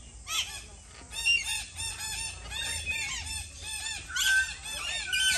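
Many caged birds calling at once: rapid, overlapping short chirping and squawking calls, several a second, growing louder about four seconds in.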